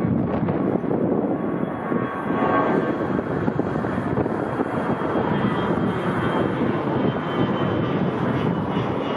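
Airliner's engines as it passes the airport, a steady rush of engine noise with a faint high whine above it.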